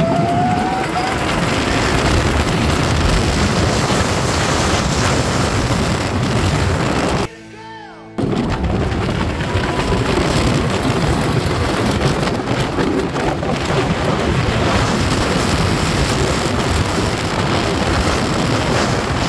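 Wooden roller coaster train running on its track: a loud, steady rumble and clatter of wheels on the wooden rails, mixed with wind rushing over the phone's microphone. The sound briefly drops away for about a second around seven seconds in.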